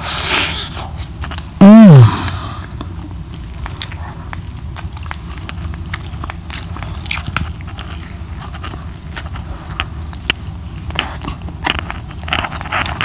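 A man chewing a mouthful of chicken curry and rice, close to the microphone, with wet mouth clicks and smacks throughout. About two seconds in there is one short, loud hummed 'mmm' that falls in pitch.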